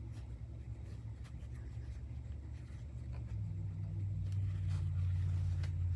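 A low steady rumble that gets louder a little over halfway through. Over it come faint rustling and a few light ticks as fabric rectangles are handled on a wooden table.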